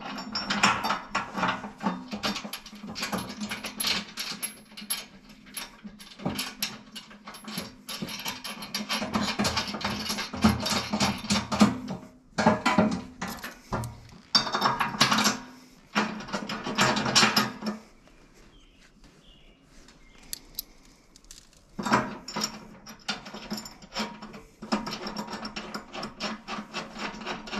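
Steel hardware clicking and rattling against a steel tractor loader bucket as bolts, flat washers and nylock nuts are fitted by hand to mount bolt-on hooks. The clatter goes in spells, with a few seconds' pause past the middle.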